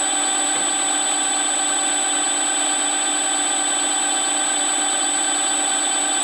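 Milling machine spindle running at speed: a steady mechanical whine with several fixed pitches and a thin high tone, unchanging throughout.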